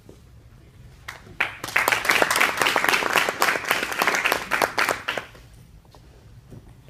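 An audience applauding, with hand claps close by. It starts just over a second in, runs for about four seconds and dies away.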